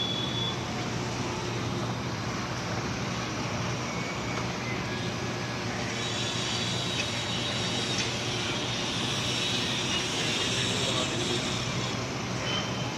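Steady outdoor background noise: a continuous rumble and hiss with a low hum underneath, the hiss growing brighter about halfway through.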